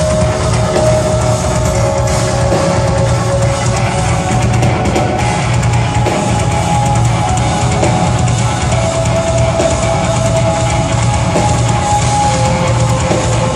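Metal band playing live at full volume: distorted guitars, bass and drums, with a guitar holding long melodic lead notes over the top.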